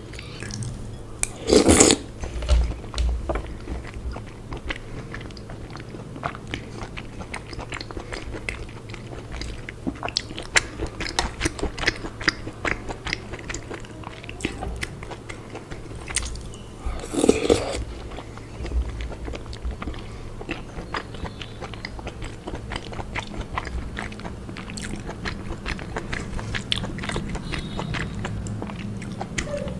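Close-up eating sounds of a person chewing and biting into soft, syrupy Indian sweets such as rasmalai: a steady run of small wet mouth clicks, with two louder noises about two seconds in and again about seventeen seconds in. A faint low hum runs underneath.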